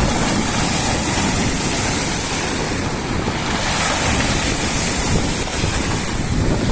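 Sea waves washing onto the shore, with wind buffeting the microphone and adding a heavy low rumble.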